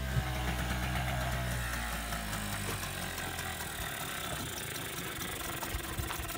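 Small outboard motor on an inflatable dinghy running steadily.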